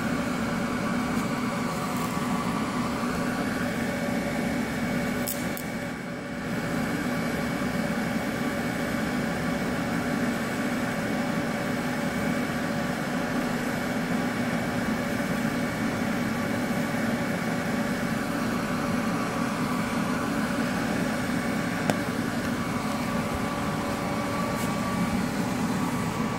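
Steady buzzing hum of a pulsed DC TIG welding arc from an Avortec AV6X+ welder, laying a bead on a steel frame rail with filler rod. It dips briefly about six seconds in, then runs on evenly.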